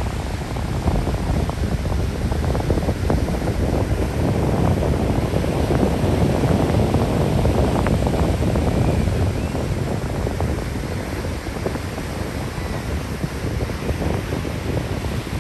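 Ocean surf breaking and washing in, with wind buffeting the microphone. The rush swells louder for several seconds in the middle, then eases.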